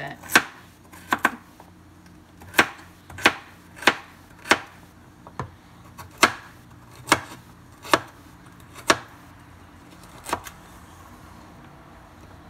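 Kitchen knife chopping a carrot on a wooden cutting board: sharp, separate knocks at an uneven pace of about one or two a second, stopping about ten seconds in.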